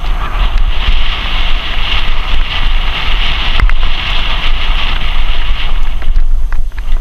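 Wind buffeting the microphone of a camera riding on a moving bicycle: a loud, steady rushing with a deep rumble underneath. A sharp click about halfway through and a few more near the end, the bike rattling over the road.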